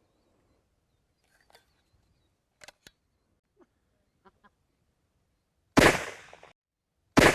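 Two loud reports from a 26.5mm flare pistol, about a second and a half apart near the end, each followed by a fading echo. A few faint clicks come before them.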